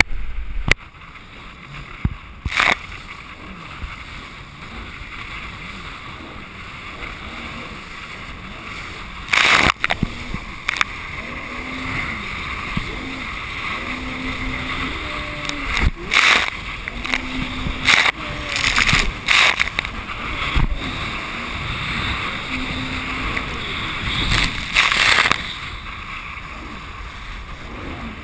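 Jet ski running at speed through choppy sea, its engine pitch rising and falling with the throttle. Spray and chop slap against the hull in several loud bursts.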